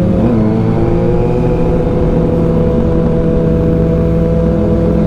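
Kawasaki ZX6R's inline-four engine running steadily under way, with a brief dip in revs just after the start.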